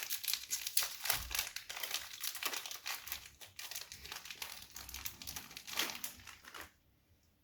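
Oreo biscuit packet wrapper being crinkled and handled as it is opened, a dense irregular crackling that stops suddenly near the end.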